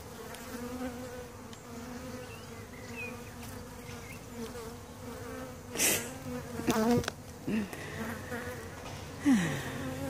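A swarm of honeybees buzzing steadily around the hive, with single bees flying close past the microphone, one dropping in pitch as it passes near the end. A couple of brief rustling knocks about six and seven seconds in are the loudest sounds.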